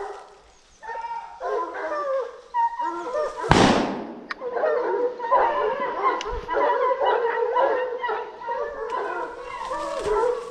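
A pack of hunting dogs barking and baying over one another without pause, the sound of dogs holding a wild boar at bay. About three and a half seconds in there is a single loud burst of noise, the loudest moment.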